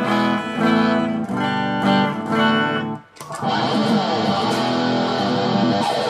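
Electric guitar through a Metal End distortion pedal with the gain turned up full: a few held, ringing chords, a brief stop about three seconds in, then fast dense riffing.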